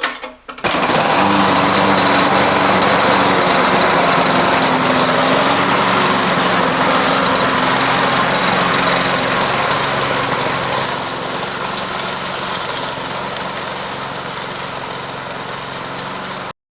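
Lawn-Boy 10632 self-propelled lawn mower's gas engine running steadily during a test run of a freshly tensioned new drive belt. The engine comes in suddenly about half a second in, gets a little quieter about 11 seconds in, and cuts off abruptly near the end.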